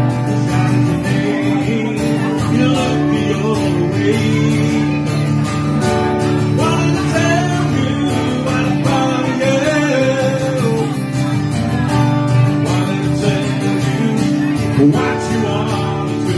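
Live guitar music: a strummed acoustic guitar with an electric guitar playing lead lines over it, and a man singing near the end.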